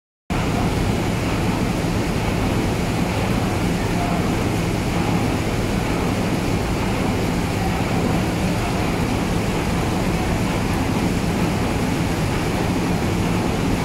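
Gravity-separation jig and surrounding ore-processing machinery running, a loud, steady mechanical din with a constant low hum, with slurry water churning in the pulsing jig bed.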